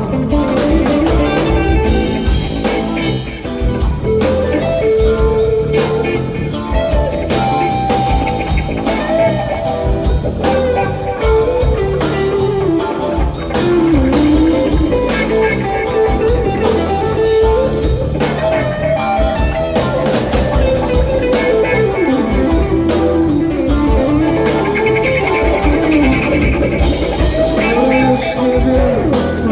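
Live rock band in an instrumental break: an electric guitar plays a lead line with bent notes over electric bass and a drum kit, with no singing.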